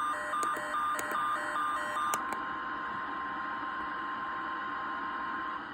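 NOAA Weather Radio's steady weather alert tone, the signal that a warning-level alert follows, here a severe thunderstorm warning. For about the first two seconds a two-pitch beeping alarm pulses over it, with a few clicks. The tone cuts off near the end, leaving radio hiss.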